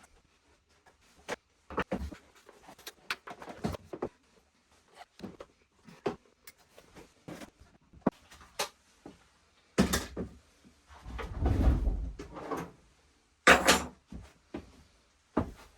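Irregular clicks, knocks and clunks of hands and tools working on a motorcycle's carburettors during removal, with a longer scraping rustle about eleven seconds in.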